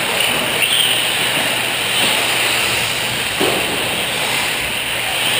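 Radio-controlled short course trucks racing on a dirt track: a steady whir of small motors and tyres on dirt, heard through the echo of a large hall.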